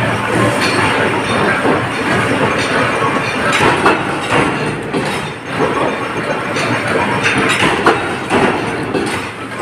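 Sheet cutting machine running, with a dense, continuous clatter of short knocks.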